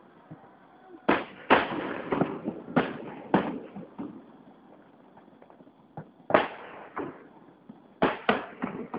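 Aerial fireworks shells bursting in a series of sharp booms, each with an echoing tail. About five go off in the first four seconds, one comes around six seconds in with another at seven, and a quick run of three lands near the end.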